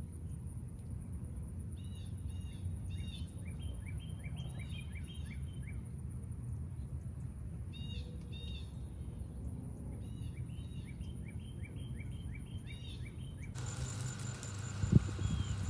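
A songbird sings groups of quick, repeated down-slurred chirps with higher notes mixed in, over a steady low outdoor rumble. Near the end the sound cuts to a steady rain hiss, with a single sharp knock.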